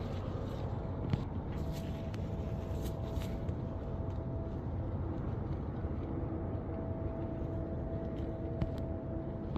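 Steady low motor rumble with a faint steady whine that comes and goes, and a couple of short clicks.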